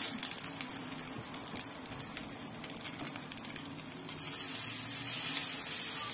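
Grated-potato pancakes (draniki) frying in hot vegetable oil in a pan: a crackling sizzle. About four seconds in the sizzle grows louder and hissier as a fresh spoonful of grated potato goes into the oil.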